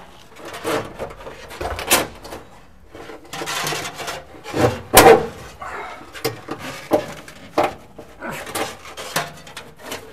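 Wiring harness being pulled by hand through the body of a 1957 VW Beetle, with irregular rubbing and scraping and scattered knocks. The loudest knock comes about five seconds in.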